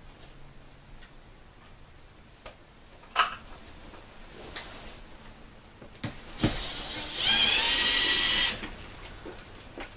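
Cordless impact driver running for about a second, backing a screw out of the shade's valance. Before it, a sharp click and a thump.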